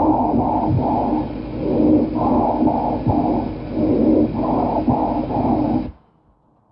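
Recorded lung sounds heard through a stethoscope. A breathing cycle repeats about every two seconds, three times over. Each cycle is a quick run of three pulses followed by a lower, softer sound over a steady tone, and the recording cuts off abruptly near the end.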